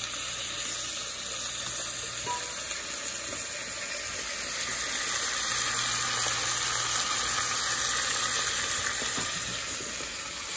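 Onions, red pepper, sherry vinegar and tomato paste sizzling in a hot pan: a steady hiss that swells a little in the middle.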